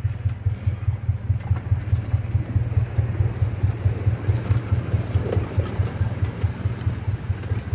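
Miniature park railway locomotive approaching along the track, its engine running with a steady, rapid low pulsing beat.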